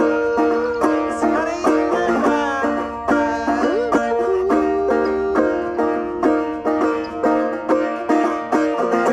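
Banjo being picked in a folk song's instrumental passage: a steady run of plucked notes, some held and bent in pitch.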